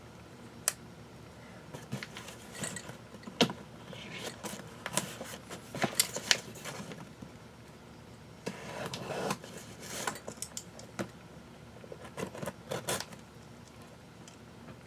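A cardboard package being opened and handled: scattered clicks, scrapes and rustles, with the small metal items inside (cowbells and carabiners) jingling.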